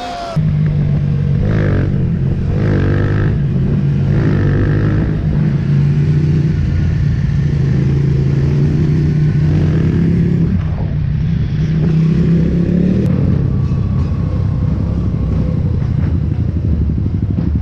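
Benelli 302R's parallel-twin engine running under load while riding, its note rising and falling with the throttle, with a drop in pitch about ten seconds in as a gear changes.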